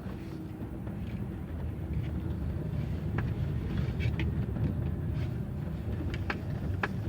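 Chevrolet Aveo creeping along with its engine running, heard from under the bonnet: a steady low rumble with several short sharp knocks, a few from about three seconds in and two more near the end.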